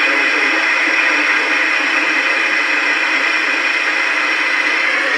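Steady radio static hiss from a receiver picking up no clear signal.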